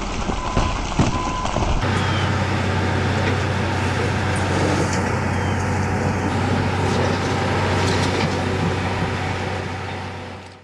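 Heavy vehicle engine running steadily with a low drone. For the first couple of seconds an intermittent beeping alarm, like a reversing beeper, sounds over it.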